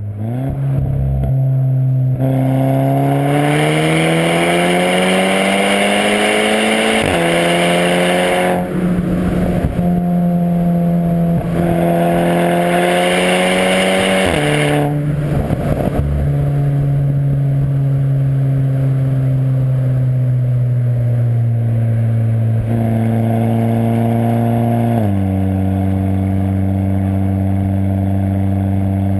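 Exhaust note of a 2010 Volkswagen Golf R Mk6 with a Stage 1 tune, DSG gearbox and full CTS 3-inch exhaust, from its turbocharged 2.0-litre four-cylinder. The car accelerates hard twice, revs climbing each time, and crackles on the overrun after each lift-off. It then cruises at steady revs, with a brief step up and back down near the end.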